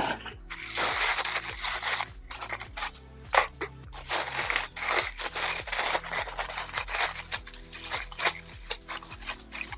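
Clear plastic wrapping crinkling and a nylon carry bag rustling as a tripod is pulled out and unwrapped by hand, with many small clicks and knocks.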